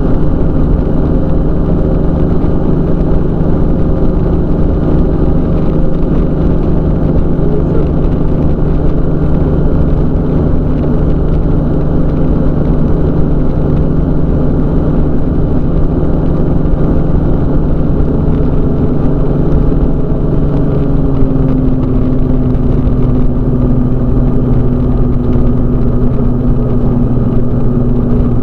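Weight-shift microlight trike's engine and propeller droning steadily in flight. A little after two-thirds of the way through, the engine note drops slightly as it slows.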